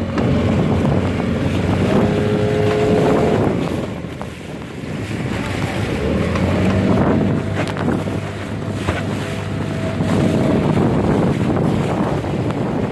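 Small fibreglass motorboat under way: its engine runs steadily, the pitch climbing twice as it is throttled up, with a brief drop in level about four seconds in. Water noise and wind buffeting the microphone run under it.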